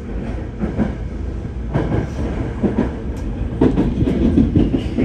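Tokyo Metro Tozai Line train running just after departure, heard from inside the car: a steady low rumble with scattered knocks from the wheels on the track.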